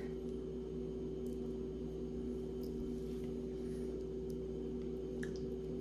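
Steady low electrical hum, with a few faint light clicks.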